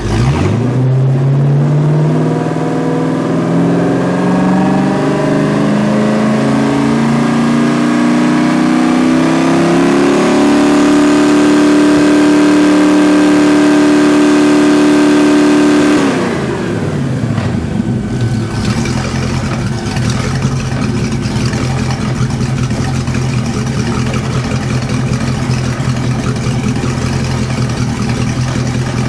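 Freshly rebuilt Volvo Penta 5.7L GXi-J marine V8 revved by hand at the throttle: engine speed climbs steadily for about ten seconds, holds high for several seconds, then drops back suddenly to a steady idle.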